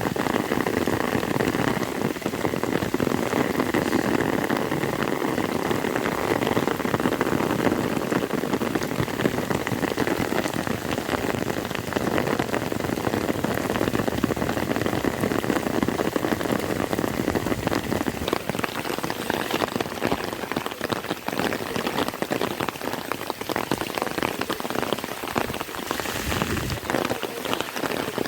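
Heavy rain falling steadily, a dense pattering of countless drops on surfaces. Near the end there is one brief low thump.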